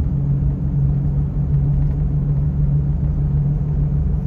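Steady low droning 'wom' rumble from a 2012 Chevrolet Colorado's BF Goodrich all-terrain tires rolling at low speed, the noise the customer took for a wheel bearing. The mechanic puts it down to a tire issue, and the tires turn out to be cupped.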